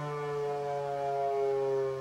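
Federal Signal 508-128 rotating outdoor warning siren sounding its Full Alert steady tone. Its pitch is slowly falling as it winds down.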